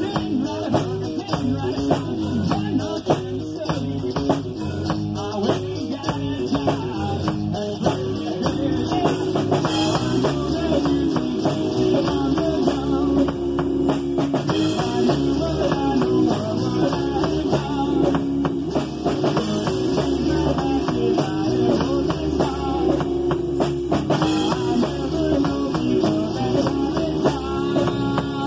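A band playing a rock song on guitar and drum kit, the sound getting fuller from about ten seconds in.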